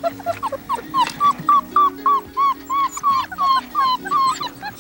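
Newfoundland puppies whimpering: a quick string of short, high whines about four a second, each rising and falling in pitch, over background music.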